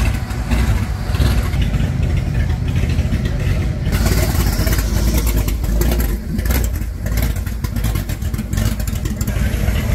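Car engine running close by with a steady low rumble; a higher hiss of noise joins about four seconds in.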